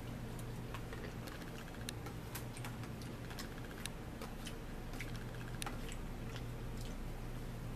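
Eating sounds at a table: irregular sharp little clicks and taps of a fork on a plate and of chewing, over a steady low hum.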